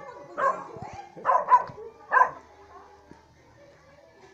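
A dog barking: four barks in the first two and a half seconds, then it goes quiet.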